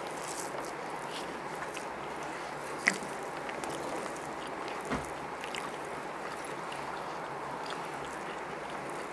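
Steady even hiss with a few small clicks and taps, the sharpest about three seconds in, from hands working biryani rice on banana-leaf plates.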